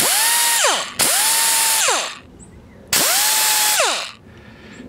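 Pneumatic right-angle die grinder with a cut-off disc, freshly oiled, run free in three short bursts of about a second each. Each time, the air hiss starts and the motor whines up to a steady pitch, then winds down in falling pitch when the trigger is let go.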